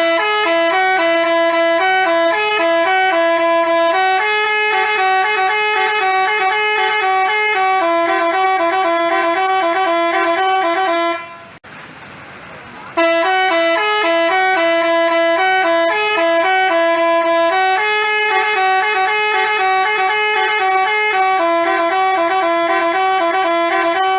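Basuri telolet bus horn playing a fast tune of stepped notes, loud. The tune breaks off about halfway through and then plays again the same way.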